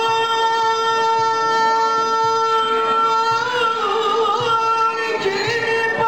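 A male singer holds one long high note of a Sufi hymn (ilahi) for about three seconds, then breaks it into quick wavering ornamental turns, with the small ensemble accompanying behind.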